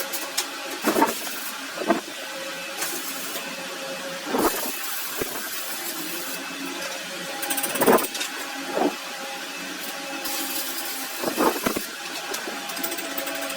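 A workshop machine's motor runs with a steady hum, with occasional short metallic knocks and clanks, about six in all.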